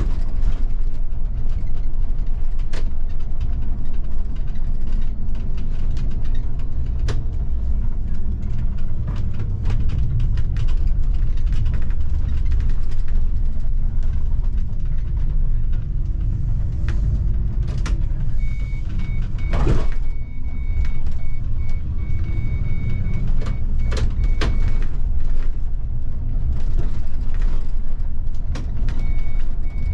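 Bus engine and road noise heard from the driver's cab, a steady low rumble with scattered clicks and rattles. From a little past halfway, a high electronic beep repeats in short pulses, stops for a few seconds, then starts again near the end.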